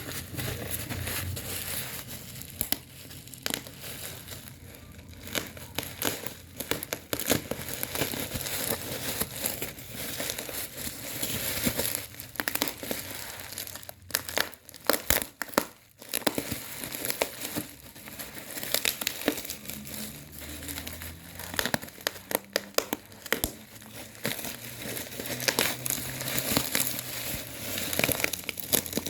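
Packaging being unwrapped by hand: continuous crinkling and rustling with many sharp irregular crackles, pausing briefly about halfway through.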